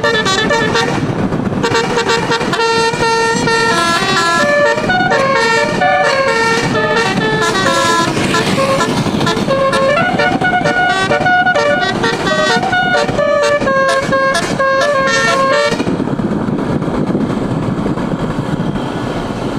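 A bus's 12-note 'telolet' musical air horn, with twelve roof-mounted trumpets, playing a quick melody of short held notes that step up and down. It stops abruptly past the three-quarter mark, leaving a steady noisy rumble without tones.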